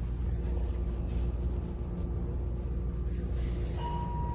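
Steady low background hum with a few faint steady tones over it; a higher steady tone comes in near the end.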